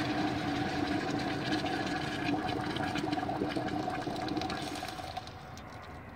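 Boiling water pouring in a steady stream from a stainless steel kettle into a crock pot through the gap under its glass lid, easing off about five seconds in.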